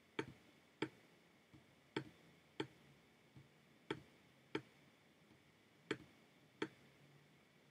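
Computer mouse button clicking, faint and sharp, mostly in pairs about half a second apart, four pairs in all, as gear shapes are cloned and dragged in an SVG editor.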